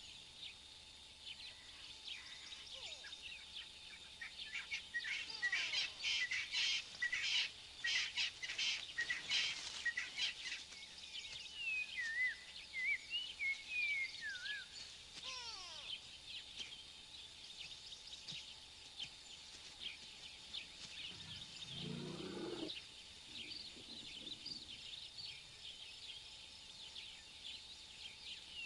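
Many wild birds chirping and whistling in the bush at dawn, a busy chorus of short calls and quick rising and falling whistles that is loudest in the first third. About two-thirds of the way through, a brief low-pitched sound rises under the birdsong.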